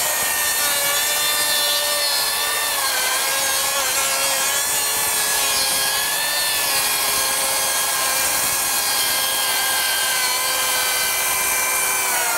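Makita 40V XGT brushless rear-handle 7-1/4-inch circular saw making a long cut along a length of lumber, a steady loud whine of the blade and motor in the wood. The pitch sags slightly about two seconds in and then holds steady, with little bogging under load.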